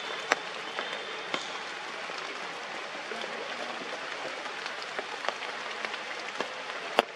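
Steady rain falling on forest leaves, with scattered louder drops landing close by; the sharpest drop strikes a little after the start and another near the end.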